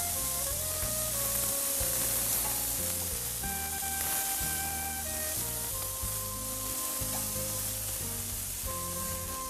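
Chicken pieces sizzling on a hot gas grill's grate, a steady hiss, under background music with held notes over a slowly changing bass.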